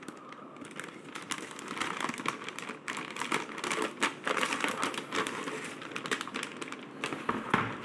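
Packaging rustling and crinkling, with many scattered sharp clicks, as a mechanical keyboard is unwrapped and handled.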